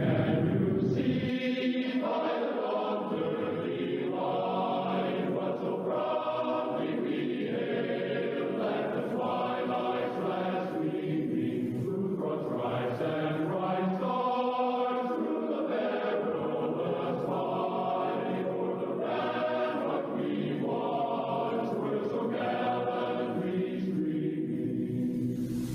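A choir singing a national anthem, slow and solemn, in long held chords. A deep rumble underneath stops about a second in.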